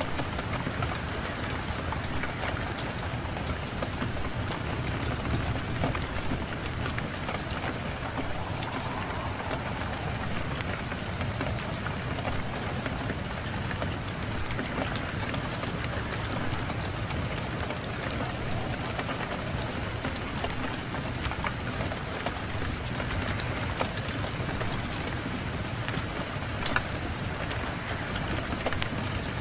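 Fireplace fire crackling, with many scattered sharp pops, over a steady low rush of wind.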